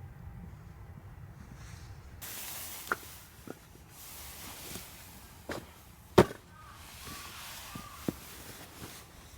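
Sharp wood cracks and snaps, five or six of them spaced irregularly, the loudest about six seconds in, over a steady hiss that starts about two seconds in.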